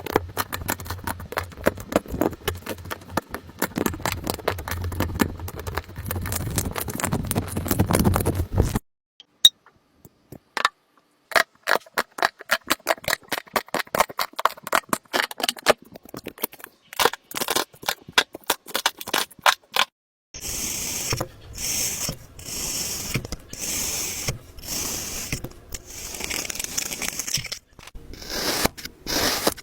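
Slime being worked by hand: dense crackling and popping clicks at first, then sparser sharp pops, then, after about twenty seconds, a run of hissy squishes about once a second.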